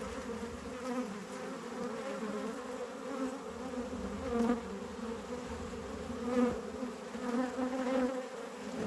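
Honeybees buzzing in a steady wavering drone, swelling louder several times as single bees pass close.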